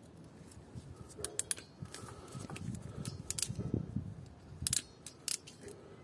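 Several sharp clicks of a hand tool working on a wire joint, some in quick pairs, over rustling and handling noise of the wires.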